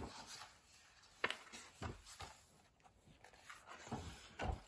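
Faint rustles and a few light taps and clicks of paper from a hand handling a picture book's pages.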